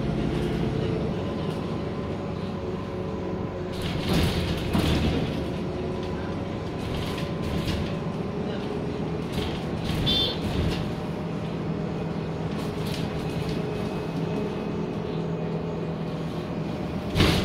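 Interior of a city bus in motion: a steady engine and drivetrain hum with body rattles. A few sharp knocks come about four seconds in and just before the end, with a brief high chirp about ten seconds in.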